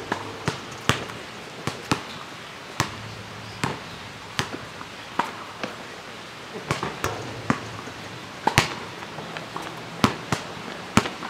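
Basketball bouncing on an outdoor asphalt court: irregular sharp bounces, with a few louder knocks in the second half.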